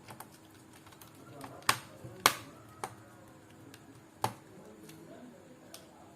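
Small metal screws and a screwdriver clicking and tapping against a laptop's plastic bottom cover as its screws are fitted back in: a few sharp separate clicks, the two loudest close together about two seconds in.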